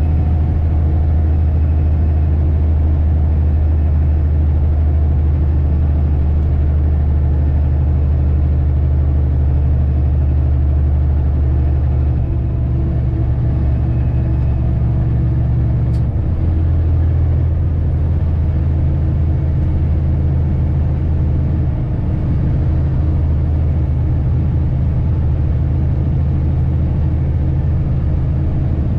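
Heavy truck's diesel engine droning steadily under load, heard from inside the cab as it pulls a light load uphill. The engine note shifts about twelve seconds in and again around sixteen seconds.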